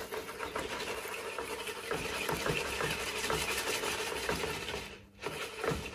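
Many small filter-media balls rattling and clattering together as they are shaken in a sieve or container, a dense steady clatter that stops about five seconds in.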